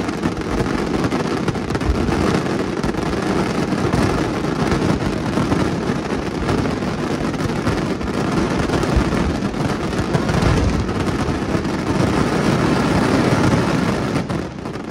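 Fireworks finale: aerial shells bursting in a dense, rapid barrage, the bangs so close together that they run into one continuous noise. It dies away near the end.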